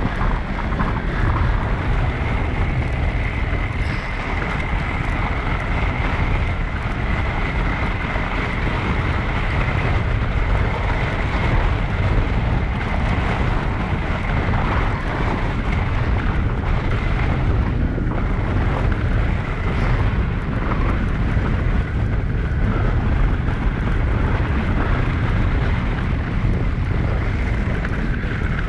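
Wind rumbling on the camera microphone as an e-bike rides across snow, with a thin, steady high whine underneath.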